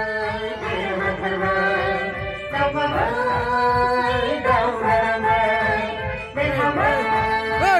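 A Bodo song played loud over a sound system: a singing voice with wavering, gliding melody lines over instrumental backing with a steady beat.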